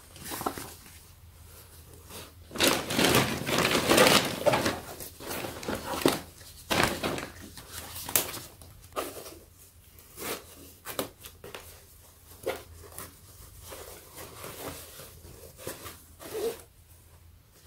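Paper and fabric packaging rustling and crinkling as it is handled and a fabric storage box is opened out, in irregular bursts that are loudest a few seconds in, with a couple of sharp snaps later on.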